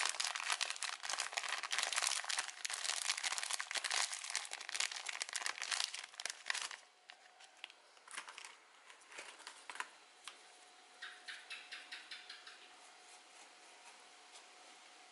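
A packet of shredded tobacco crinkling and rustling as it is opened and emptied into the pot, for about seven seconds. After that only scattered small clicks remain, with a quick run of light ticks around the twelve-second mark.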